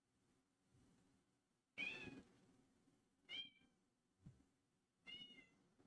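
A cat meowing three times, short faint calls about a second and a half apart.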